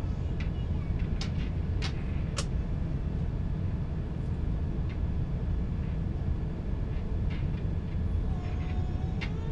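Steady low rumble of Airbus A350 cabin noise in flight, from the jet engines and the airflow over the fuselage. A few short sharp clicks come in the first couple of seconds.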